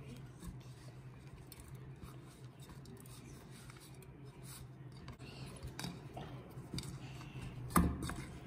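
Hands kneading a soft flour dough in a stainless steel bowl: faint scratchy rubbing and squishing against the bowl, with one louder thump near the end.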